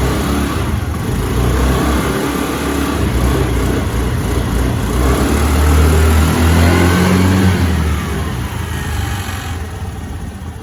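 Small scooter engine, just kick-started from cold, running and being revved to warm it up. It rises in pitch and gets louder toward the middle, then falls back toward idle near the end.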